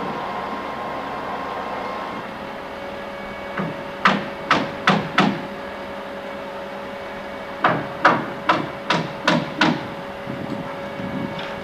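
Hammer driving nails into wood framing: two runs of quick blows, about four and then about six, roughly two to three a second.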